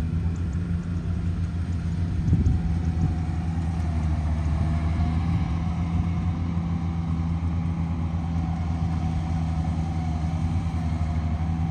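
Heavy farm machinery's diesel engine running steadily at constant speed, with a fainter whine wavering above it and a brief knock a little over two seconds in.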